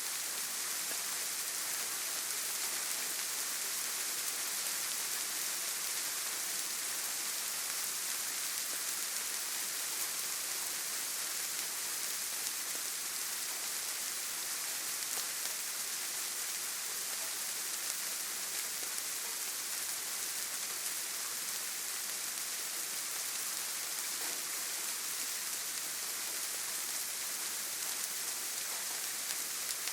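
Steady rain falling, a constant hiss with a fine patter of drops on a surface.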